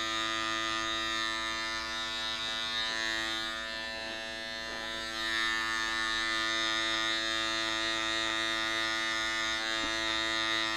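Electric hair clipper with a guard attached, buzzing steadily as it is run up through short hair; the level dips briefly about four seconds in.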